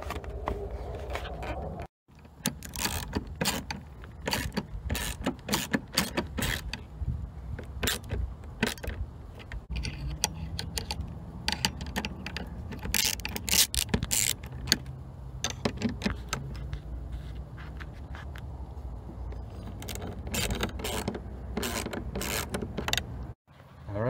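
Socket tool on an extension working a screw in a car door's handle opening: a long run of irregular metal clicks and clinks, over a low background rumble.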